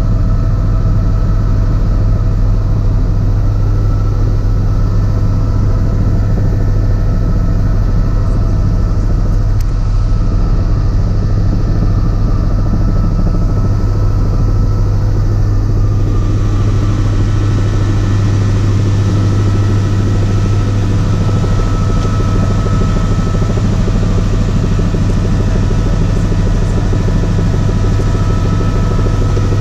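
Helicopter turbine and rotor noise heard inside the cabin in steady flight: a loud, constant low drone with steady whining tones above it. About halfway through, a higher hiss comes up and stays.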